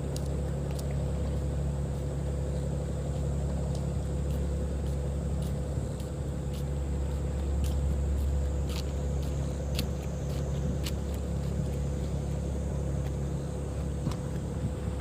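Steady low engine drone with a constant higher hum, typical of a boat's diesel engines running at low revs; faint scattered ticks over it.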